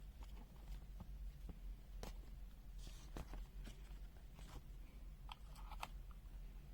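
Faint scattered clicks and light handling noise over a low steady hum: multimeter test leads being put to a small capacitor's legs.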